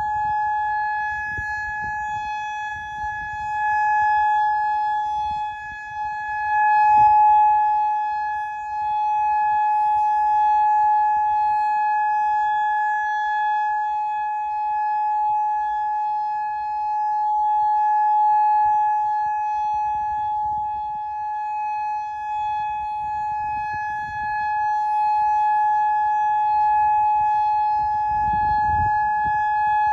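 Federal Signal Modulator electronic outdoor warning siren sounding a steady, single-pitch tone that holds without a break, swelling and easing slightly in loudness, during its scheduled test.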